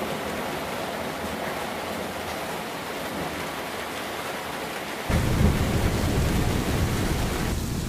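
Steady hiss of heavy rain. About five seconds in, a louder low rumble comes in on top and carries on.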